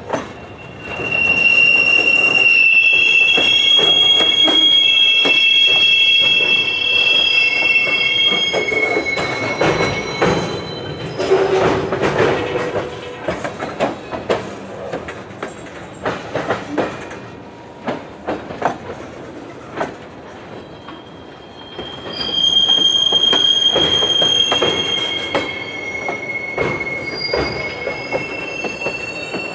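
Freight cars, tank cars and a covered hopper, rolling slowly through a railroad hump yard. Their steel wheels give a loud, high-pitched squeal for the first several seconds and again for a few seconds late on, over a clatter of wheels knocking across rail joints and switches.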